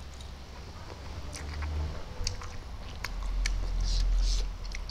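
Close-up eating sounds of a person slurping and chewing spicy instant noodles, with wet mouth smacks and clicks and a short hissing slurp about three and a half seconds in.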